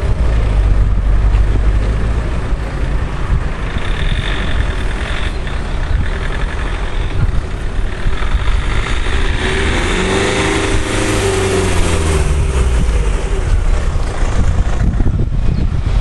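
A motor vehicle passing by: its engine hum rises and then falls in pitch about ten to thirteen seconds in, with a thin high whine in the seconds before. Under it is a steady low rumble of wind on the microphone.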